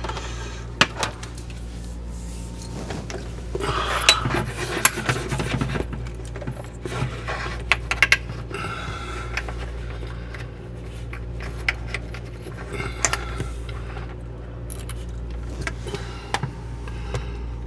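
Handling small metal screws and hardware: scattered clinks, rattles and rubbing with a few sharp clicks, over a steady low hum.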